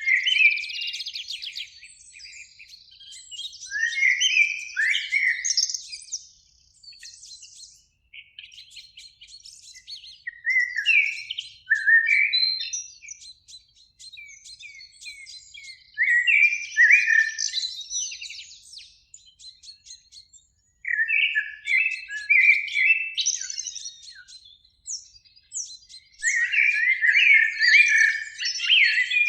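Common blackbirds singing: a run of separate song phrases a few seconds apart, each made of low, fluting whistled notes followed by a higher, squeaky twitter.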